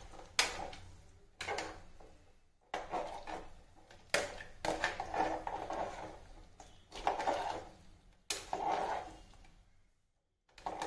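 Metal ladle stirring sambar in an open pressure cooker, scraping and knocking against the pot in repeated strokes about a second apart, with a brief pause near the end.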